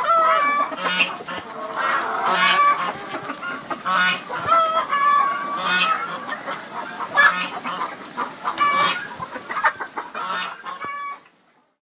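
Several hens cackling and clucking in loud, repeated, overlapping calls, which stop shortly before the end.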